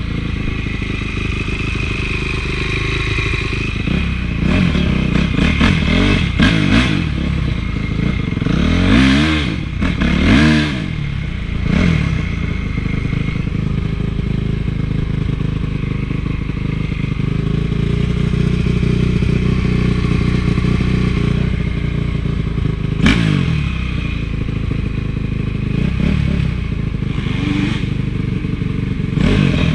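Honda CRF450 four-stroke single-cylinder motocross engine under way, revved up and down repeatedly, with a spell of steadier running in the middle and another sharp rev a little over three-quarters of the way through.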